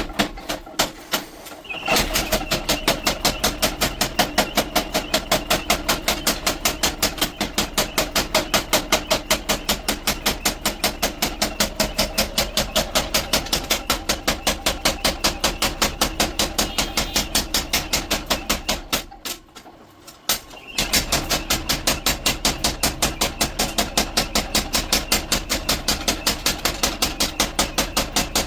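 Forging hammer striking hot steel in a fast, even rhythm of about four blows a second, shaping a khara sacrificial blade. The blows stop briefly about a second in and again about two-thirds of the way through.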